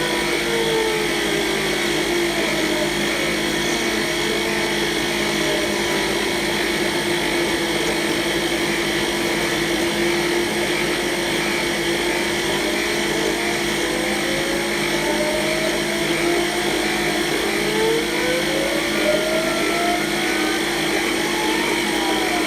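CNC mill spindle running steadily through a cut, with a whine from the axis drive motors that slowly rises and falls in pitch as the tool moves along its path.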